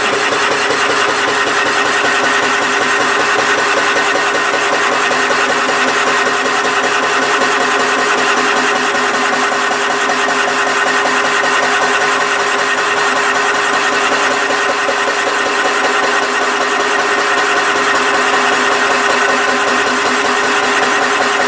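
A machine running steadily, with a constant hum and a very fast, even rattle.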